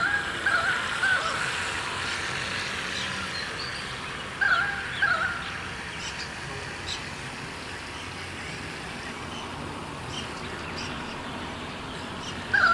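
A bird calling in short runs of several harsh, slightly falling notes, three times: at the start, about four and a half seconds in, and again at the very end, over a steady faint outdoor hiss.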